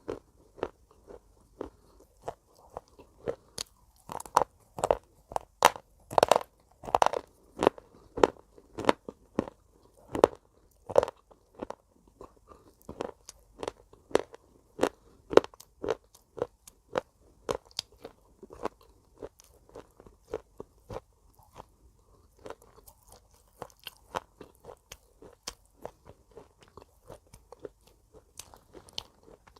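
Pieces of broken slate pencil crunched and chewed between the teeth: a steady run of sharp crunches, about two a second.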